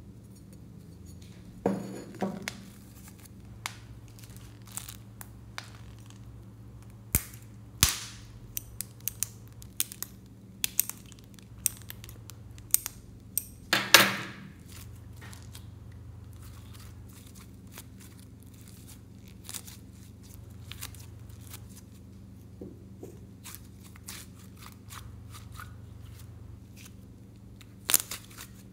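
Red slime being squeezed through a mesh squishy ball and worked by hand, making scattered wet clicks, pops and crackles, with louder squishes about two seconds in, midway and near the end, over a faint steady hum.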